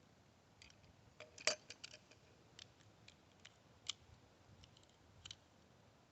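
Faint, irregular light clicks from handling a 1911 pistol and its magazine, about a dozen in all, the loudest about a second and a half in.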